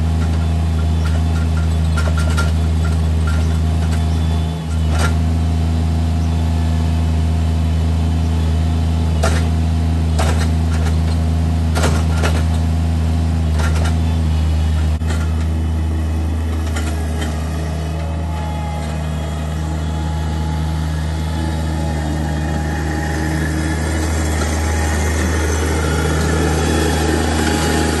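Diesel engine of a Bobcat MT85 mini track loader running steadily. In the first half there are sharp knocks and clanks while its grapple bucket tips soil into a wooden raised bed.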